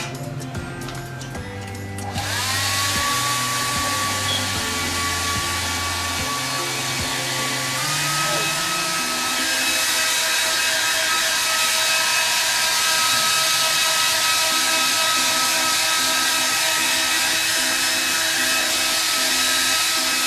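Handheld hair dryer switching on about two seconds in, its motor whine rising as it spins up, then blowing steadily. About eight seconds in the whine steps up in pitch. Background music plays underneath.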